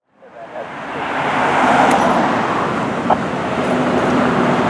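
Road traffic noise fading in over the first second: cars passing at a street intersection, with a low steady hum joining about three and a half seconds in.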